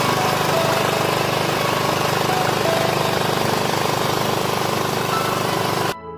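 Small OHV petrol engine running steadily, driving the belt-driven piston air compressor that supplies a paint spray gun. It cuts off suddenly just before the end.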